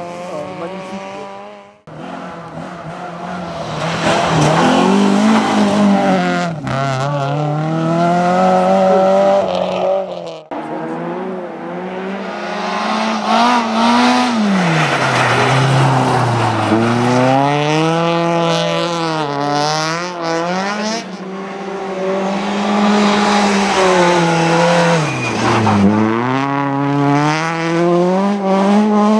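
Rally cars' engines revving hard, pitch climbing and dropping back again and again as the drivers accelerate, lift and change gear. The sound comes from several different cars in turn, with abrupt cuts between them.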